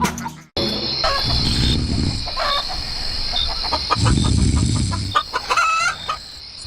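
Chickens clucking in short calls over a steady high hiss, with low rumbling noise twice.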